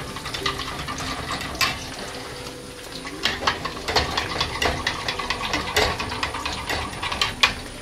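Eggs being beaten in a ceramic bowl with a metal utensil: quick, uneven clicking taps against the bowl, loudest in the second half. Onions and tomatoes sizzle in a frying pan underneath.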